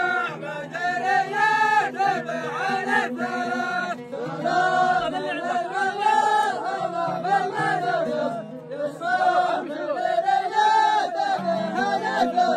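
A group of men chanting together in unison, a traditional tribal chant sung in long phrases with short breaks about four and eight and a half seconds in.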